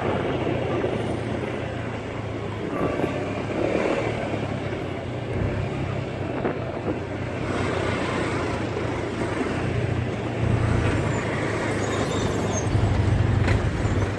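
Road traffic heard from a motorcycle: its engine running steadily amid the noise of surrounding cars and vans, growing somewhat louder in the last few seconds.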